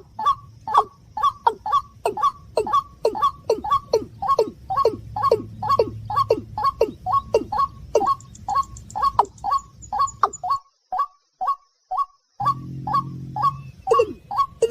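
Recorded rail calls: a rapid, even series of short descending notes, about three a second, over a low hum. They break off for about two seconds near the end, a short low buzz follows, and then the calls resume.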